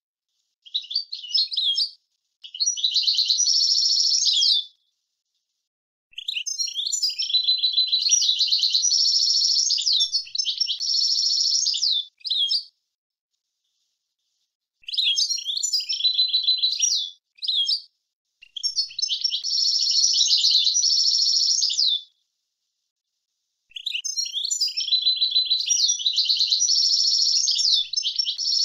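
European goldfinch singing a tutor-song recording. Fast, high twittering phrases with trills, several seconds each, broken by short silences.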